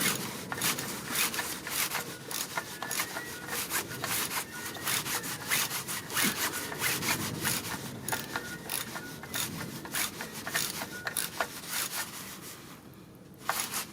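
Ratchet wrench clicking in quick runs with rasping strokes as the plastic cartridge oil filter housing cap is screwed down, stopping about 12 seconds in.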